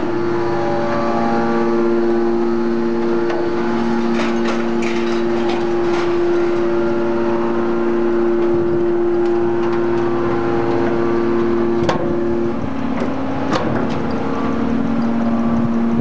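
Y81-3150 hydraulic metal baler's power unit running with a steady whine made of two tones. The higher tone drops out about three-quarters of the way through and the lower one carries on. A few sharp metal clanks come over it.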